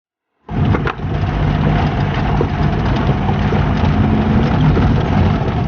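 An engine running steadily, loud and rumbling, cutting in suddenly about half a second in.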